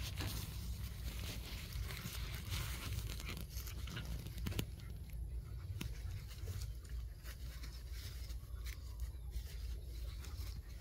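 Two small dogs play-fighting and wrestling on grass: scuffling and rustling with scattered short clicks, over a steady low rumble.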